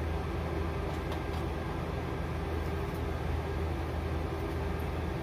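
Steady low machine hum, like a running air conditioner or fan, with a few faint clicks of something being handled about a second in.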